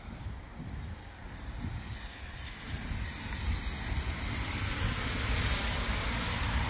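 Street noise on a wet day: a steady low rumble with a hiss of traffic on the wet road that grows louder from about halfway through.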